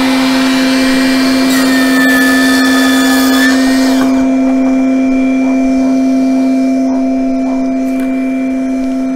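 Makita DLS714NZ cordless slide miter saw running at speed with a high whine, crosscutting a wooden board for about two seconds, its motor winding down about four seconds in. A Makita cordless dust extractor connected to the saw runs at full power with a steady hum throughout.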